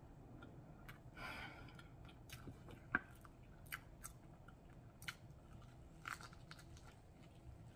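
A person chewing a mouthful of pancake close to the microphone, faint, with scattered small mouth clicks and light crunches. A sharper click about three seconds in is the loudest.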